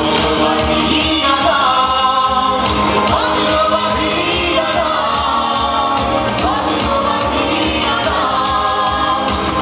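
Live band performing a Bangla song: several voices singing together over guitar and a steady beat.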